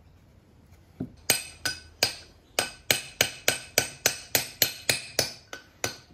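Hammer tapping on steel steering-box parts: a steady run of sharp, ringing metal-on-metal blows, about three a second, starting about a second in, driving a part of the box loose.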